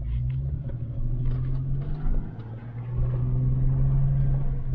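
A motor vehicle driving along: a steady low engine and road hum that gets louder about three seconds in.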